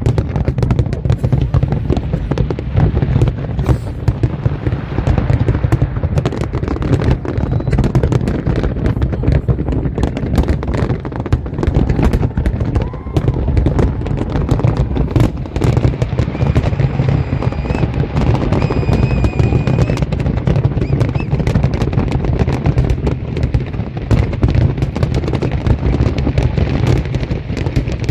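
Fireworks display: a dense, continuous barrage of bangs and crackling, many per second, with a thin high whistle briefly about two-thirds of the way through.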